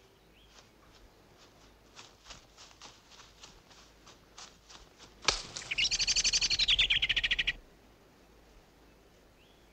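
Light crackling steps through dry twigs and leaf litter, then a sharp crack about five seconds in. Right after, a bird gives a loud, rapid rattling call for about two seconds, dropping in pitch partway through. A few soft bird chirps come near the end.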